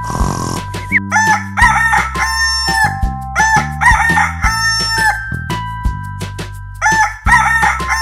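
Rooster crowing, a cock-a-doodle-doo sound effect heard three times, about a second in, around three seconds in and again near the end, over steady background music.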